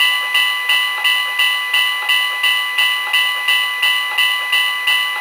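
Locomotive Legends talking wall clock playing a railway sound effect through its small speaker: a bell-like ringing struck about three times a second, each strike fading into the next. It cuts off abruptly at the end.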